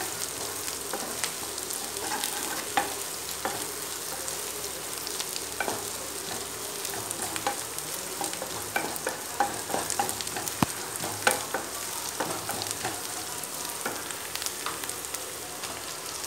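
Sliced onions and curry leaves sizzling in hot oil in a kadai, stirred continuously with a wooden spatula that scrapes and clicks against the pan. The onions are being sautéed to golden brown.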